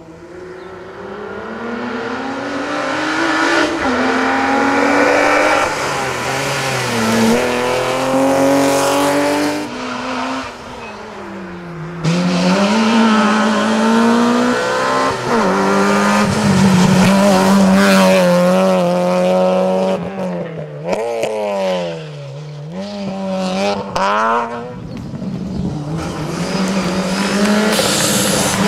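Rally car engine revving hard and getting louder as the car approaches. The pitch climbs and falls repeatedly as it shifts gears and brakes, with sharp drops in revs about twelve seconds in and again near twenty seconds.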